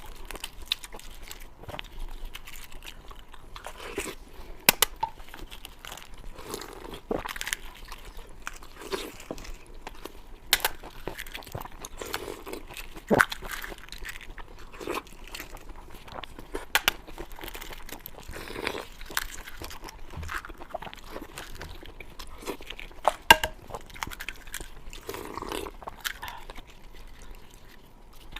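Close-miked eating sounds: chewing and biting with crunches and sharp wet mouth clicks, recurring every second or so.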